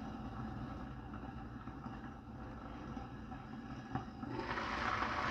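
Covered wok of mustard greens steaming over a high gas flame: a steady low rumble and hiss. About four seconds in, the glass lid clinks as it is lifted, and the sizzling grows steadily louder.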